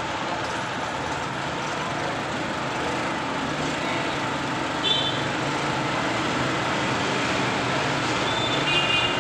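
Petrol generator engine running steadily with no load, an even mechanical hum. Its output reads only about 170 volts, which the mechanic puts down to a weakened AVR. Two faint short high beeps, about five seconds in and near the end.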